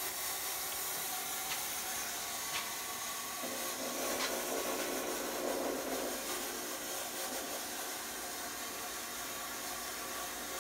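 400-watt Party City fog machine firing, a steady hiss as it pushes fog out through a vortex fog chiller. It grows a little louder between about four and six seconds in.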